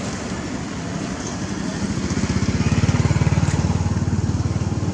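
A motor vehicle's engine passing on the road, with a fast even low pulse that swells to its loudest about three seconds in and then eases off, over steady outdoor noise.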